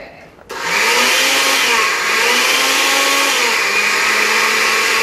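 Countertop blender starting up about half a second in and blending watermelon chunks for a slushy. Its motor pitch sags and recovers a couple of times before settling into a steady run, as the contents catch and don't circulate freely; soon after, the jar has to be opened and stirred down with a wooden handle.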